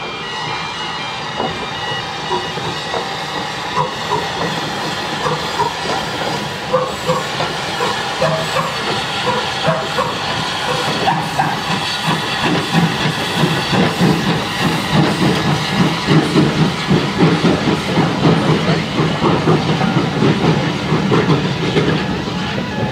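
Steam locomotive hauling coaches over a level crossing: a steady hiss of steam, with the crossing's warning alarm tones sounding at the start. In the second half a rhythmic exhaust beat of about two puffs a second builds and grows louder as the engine passes.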